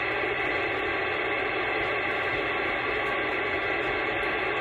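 CB radio receiver putting out steady hiss and static on an open channel between transmissions: band noise during skip conditions.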